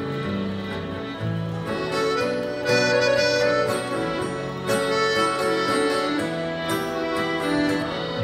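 Instrumental break in a folk song. An accordion plays the melody in held notes over a strummed acoustic guitar, getting louder about two and a half seconds in.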